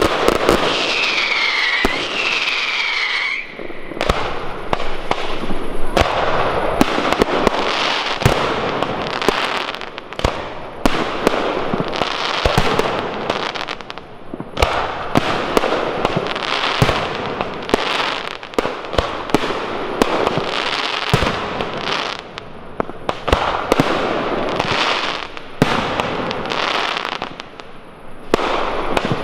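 Large display fireworks going off: rapid sharp bangs of comets and aerial shells launching and bursting over continuous crackling. A couple of whistling effects sound in the first few seconds.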